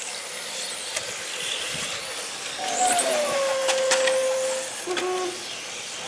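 Electric radio-controlled racing cars running on an asphalt track, their motors and drivetrains whining high and rising and falling as they accelerate and pass. About halfway through a held mid-pitched tone sounds for nearly two seconds, followed by a short lower tone near the end.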